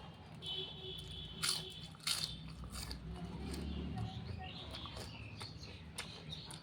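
A person chewing food with a few sharp mouth clicks and smacks, eating a cooked jackfruit curry.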